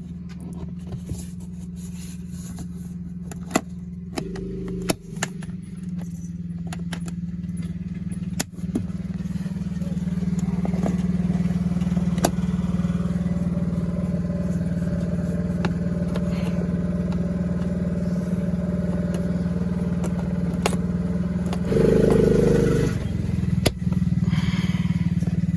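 An engine running steadily, growing louder partway through, with scattered sharp clicks and knocks as the plastic air box cap is fitted and its clips are snapped shut.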